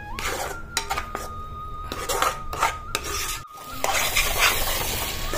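Steel spoon stirring and scraping thick tomato masala around a nonstick kadai in repeated strokes, with the masala sizzling more steadily from a little before four seconds in.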